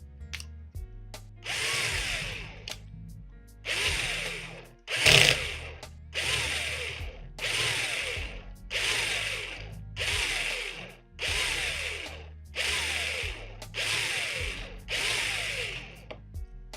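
Small power drill run in about a dozen short bursts roughly a second apart, each with a whine that falls in pitch, as it bores into the metal of a Hot Wheels die-cast car.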